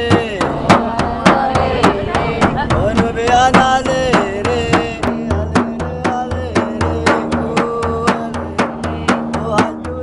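Large hand-held frame drum struck by hand in a fast, steady rhythm, deep thumps mixed with sharp slaps, while a man sings over it in long held notes.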